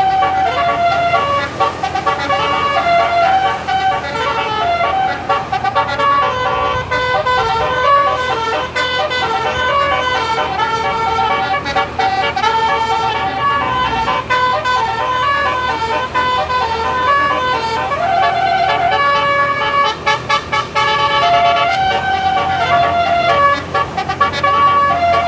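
A tour bus's 'basuri' telolet multi-tone air horn playing a melody: several horn notes sound together and change pitch step by step, without a break.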